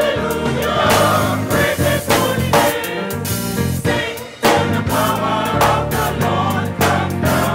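Gospel choir singing together over instrumental backing with a bass line and a steady beat. The sound briefly drops a little past the middle, then comes back in full.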